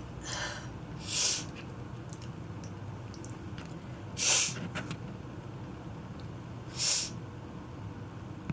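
Sneezes: three short, sharp sneezes a few seconds apart, with a softer breath just before the first.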